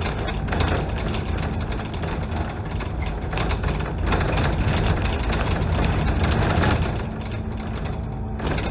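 Dennis Trident double-decker bus under way, heard from the upper deck: engine and drivetrain running, with a fast, busy rattle from the bodywork and windows. The noise grows louder for a few seconds past the middle, then eases near the end, where a steady hum comes back.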